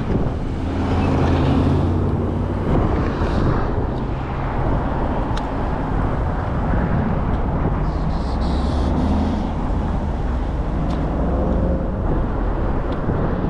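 Wind rushing over the microphone with road noise, and a low vehicle hum swelling up twice: once near the start and again in the second half.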